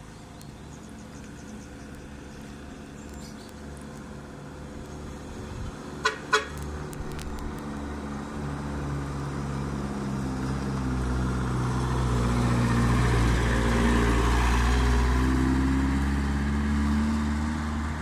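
Truck engine approaching, growing louder as it draws near and passes, then fading as it moves away. Two short horn toots about six seconds in.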